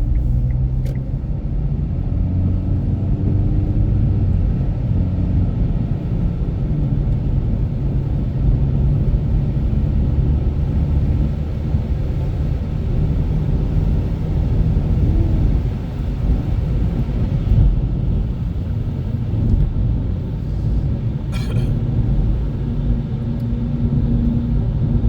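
Infiniti Q50 Red Sport 400 driving, a steady low rumble of road and engine noise with a faint hum from its twin-turbo V6 that wavers in pitch.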